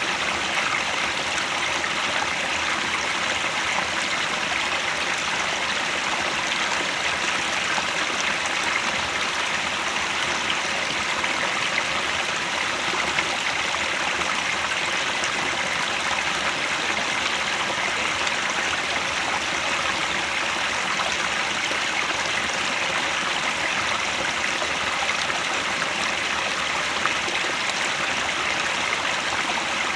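Mountain headwater stream running steadily over rocks, an even rushing and trickling of water.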